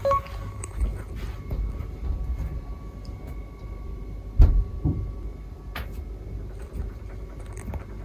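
Upstairs neighbour's ordinary footsteps heard through the ceiling of a wooden apartment: dull low thuds ("don-don"), the loudest about four and a half seconds in, over a low rumble. The sound shows how readily walking on the floor above carries through the wooden structure.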